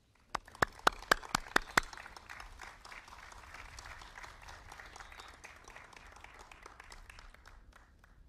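Audience applauding: a handful of loud, close single claps in the first two seconds over the start of the clapping, then steady applause that thins and dies away near the end.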